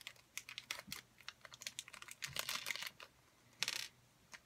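A small plastic zip-lock baggie crinkling and crackling in the fingers as fingerboard wheels are worked out of it: quick, irregular little crackles, with a slightly longer rustle over half a second past the three-second mark.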